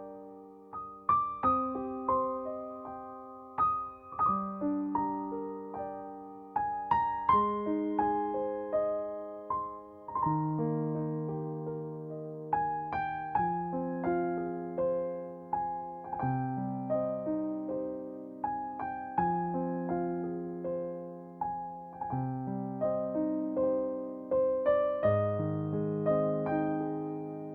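Background music: a slow, gentle piano piece of struck chords and a simple melody, each note ringing and fading.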